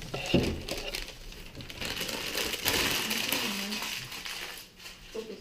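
Crinkling and rustling of gift packaging being handled, loudest a little after the middle, with a single knock near the start.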